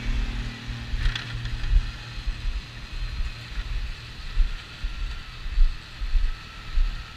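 Compact tractor with a front-mounted snowblower running at a steady engine note. Uneven gusts of wind noise buffet the microphone, and there is a short hiss about a second in.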